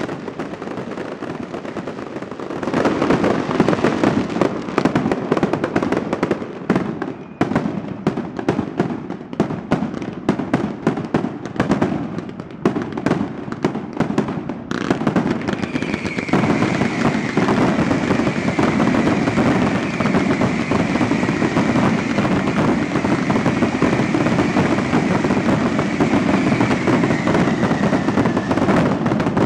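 Fireworks going off in a dense, continuous crackle of rapid bangs, getting louder about three seconds in. From about halfway the crackling runs on steadily, with a faint high whistle above it that fades out near the end.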